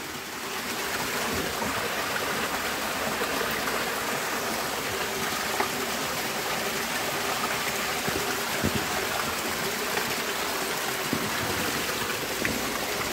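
Water running steadily through an old tunnel, a continuous even rush with a few faint ticks.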